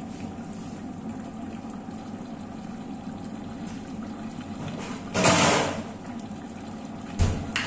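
A steady low kitchen background with a short sliding, scraping rush about five seconds in and a sharp knock near the end, typical of a cupboard or drawer being opened and something set down while a kitchen item is fetched.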